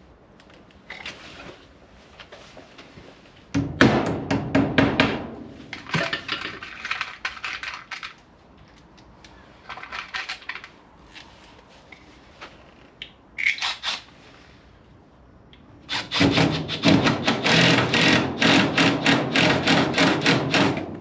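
Tools and fittings clattering and rattling as a toolbox or kit bag is rummaged through. The sound comes in short bursts, with a longer and louder run of rattling in the last few seconds.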